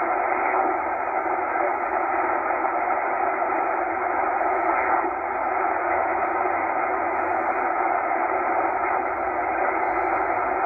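Shortwave receiver static in upper sideband: a steady, narrow-sounding hiss with faint steady tones in it, heard while the Tecsun H-501X is tuned up through the 8.6 MHz range with no station coming in clearly.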